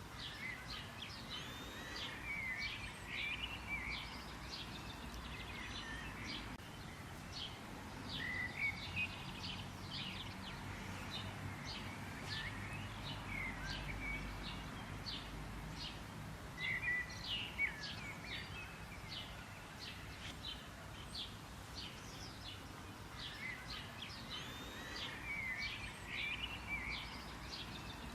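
Several small birds chirping: clusters of short, quick high chirps and twittering notes come and go, over a faint low background rumble.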